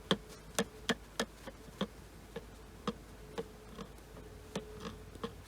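A series of light, sharp clicks, about three a second at first, then slowing and growing fainter, over a faint steady hum.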